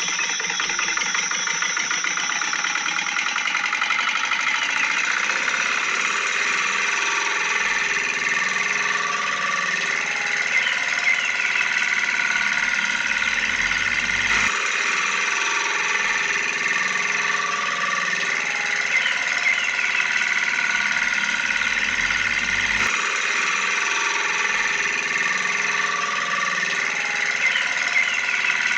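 A steady engine-like running sound with a whine, repeating the same pattern about every eight and a half seconds with abrupt joins: a looped tractor-engine sound track.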